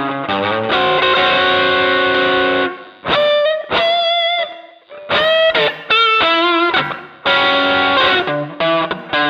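Electric guitar played through an MXR Dyna Comp compressor pedal. A long ringing chord comes first, then from about three seconds in a run of single notes with bent, wavering pitch, then chords again near the end.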